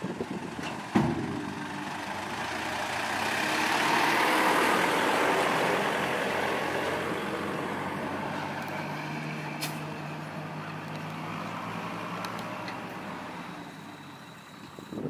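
Truck engine running as the truck passes, growing louder to a peak about four seconds in and then slowly fading, with a sharp knock about a second in.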